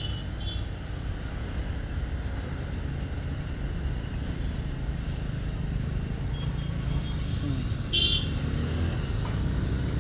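Steady low outdoor rumble with no clear single source, and a brief high-pitched chirp about eight seconds in.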